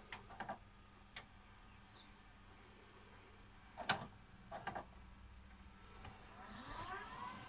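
Quiet film soundtrack played back from VHS tape: a few faint, short cricket-like chirps, then a set of rising tones near the end, over a steady faint high whine.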